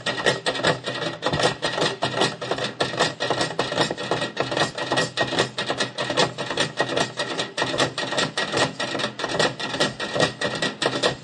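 Percussion ensemble drumming on plastic buckets and barrels used as drums: a fast, steady, unbroken stream of stick hits.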